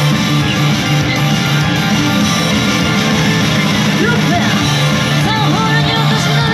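Loud rock-style idol pop played live, with guitar over a steady bass line. A singing voice comes in about four seconds in.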